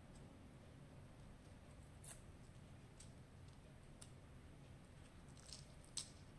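Near silence: low room hum with a few faint, sharp clicks and taps as a Nikon Z6 II mirrorless camera body is handled and turned over in the hands, the loudest click near the end.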